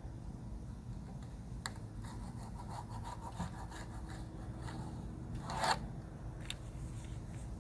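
Rubbing and scraping from hand work on a screen panel, with scattered small clicks and one louder scrape about five and a half seconds in.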